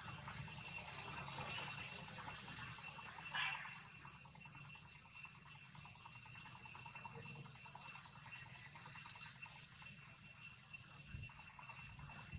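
Steady high-pitched chorus of insects, several thin drawn-out tones running without a break. Two brief louder noises break in, about three and a half seconds and ten seconds in.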